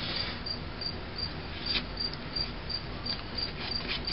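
Faint outdoor background with insects chirping in an even rhythm, about three short pips a second.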